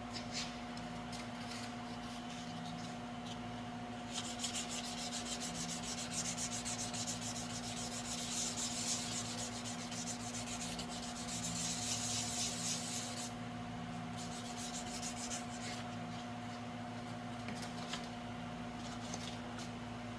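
Sandpaper rubbed back and forth by hand in quick strokes for about nine seconds, with a few lighter scratches before and after. A steady hum runs underneath.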